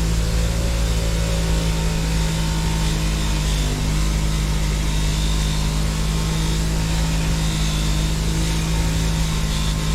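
Electric wire wheel running steadily with a strong even hum, its wire brush scrubbing an old survival knife blade clean.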